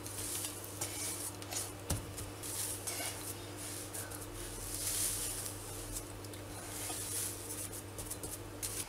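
Hands rubbing and mashing crumbly besan laddoo mixture (roasted gram flour, ghee and powdered sugar) on a steel plate. Soft, irregular rustling and squishing, with a single sharp knock against the plate about two seconds in.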